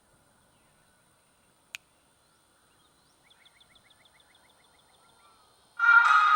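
Quiet outdoor stillness with one sharp click, then a quick run of high chirps. Near the end, the mud truck's DS18 stereo suddenly starts playing music at full volume, heard from a long way off.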